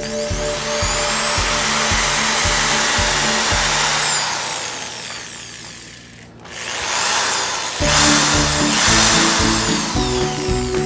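Corded SKIL F0156271 710 W impact drill running free with an empty chuck. Its motor whine climbs to speed and holds, then winds down almost to a stop about five to six seconds in. The trigger is pulled again and it runs back up, over background music with a steady beat.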